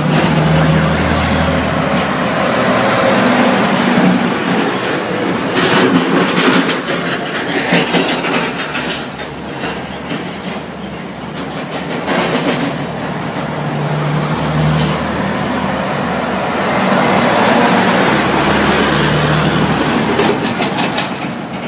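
Freight train rolling along with flatcars in tow, heard from on board: a steady rumble with the wheels clattering over the rail joints.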